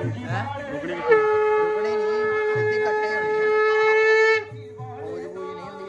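A horn blown in one long, steady note lasting about three seconds, with a slight upward scoop as it starts.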